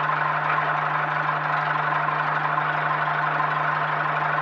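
Engine and propeller of a Zenith STOL CH 750 light aircraft running steadily at taxi power, heard from inside the cockpit as an even drone with a strong low hum.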